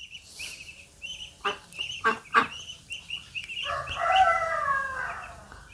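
Domestic ducks calling: a steady run of short, high peeps throughout, and a longer honking call from about four to five seconds in. A few sharp taps sound between one and a half and two and a half seconds in.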